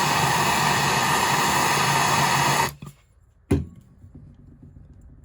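Blowtorch flame burning with a loud, steady hiss while heating a metal pipe punch, shut off suddenly a little over halfway through, followed by a single sharp knock.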